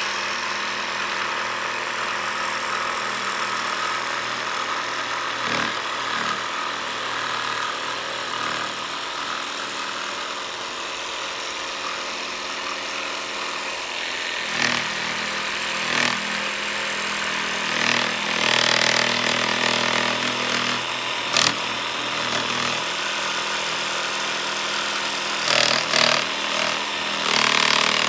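Makita 12 V cordless jigsaw with a Diablo scroll blade, set to orbital action, running steadily as it cuts through wood. A few sharp clicks come through, about five seconds in, about twenty seconds in, and again near the end.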